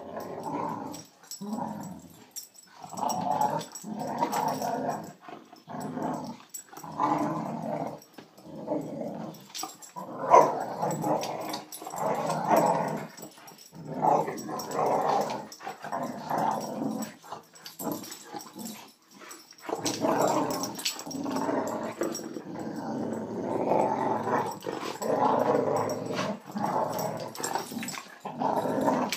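A boxer and a border collie mix play-fighting, growling at each other in bouts of a second or two. The growling runs almost without a break in the last third.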